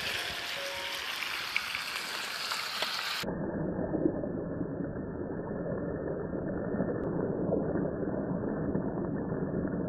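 Sizzling and crackling from meat frying in cast-iron skillets over a campfire. About three seconds in, the sound cuts abruptly to a dull, muffled, low rumbling noise.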